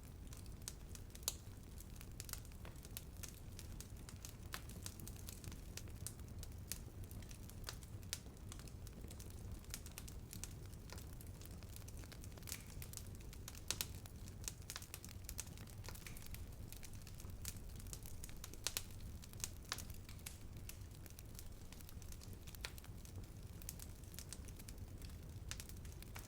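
Wood fire burning: a steady low rumble of flames with frequent irregular crackles and sharp pops from the burning wood.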